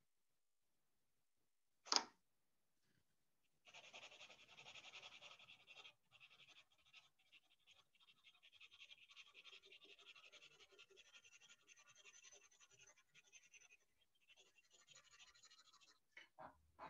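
Faint scratching of a pencil shading on sketchbook paper in rapid strokes, clearest from about four to six seconds in. A single sharp click comes about two seconds in.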